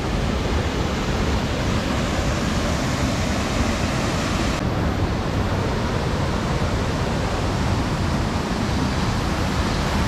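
Waterfall running in heavy flood: a loud, steady rush of falling, churning water.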